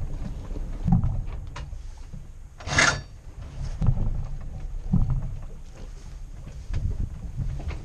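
Sailboat hull working upwind through a chop: repeated low thumps as it meets the waves, and one rushing splash of water about three seconds in, over steady wind and water noise.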